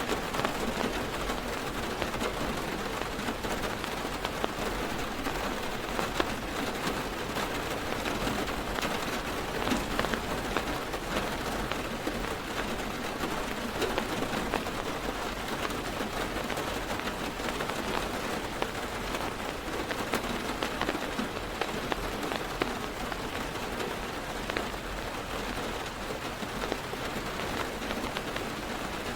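Heavy rain drumming steadily on a car's roof and windows, heard from inside the car, with many separate drop ticks in a dense hiss.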